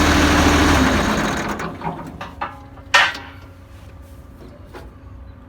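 A tractor engine running steadily stops about a second in. Scattered mechanical clicks and knocks follow, with one sharp knock about three seconds in.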